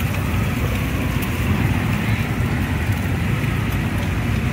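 Steady rumble of passing motorbike traffic mixed with the sizzle of fried noodles and an egg in a large wok, with a few light clicks of a metal spatula on the pan.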